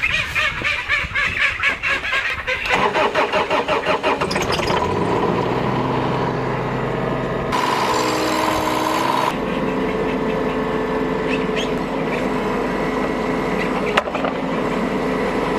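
Ducks quacking loudly for the first few seconds, then a Bobcat mini excavator's engine starts and runs steadily.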